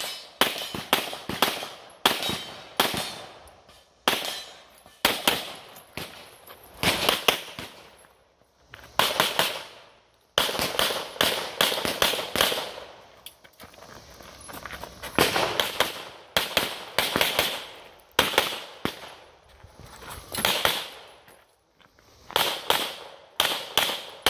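Rapid pistol fire from a Canik METE SFT Pro 9mm competition pistol: sharp shots in quick pairs and short strings, with pauses of about a second or two between groups.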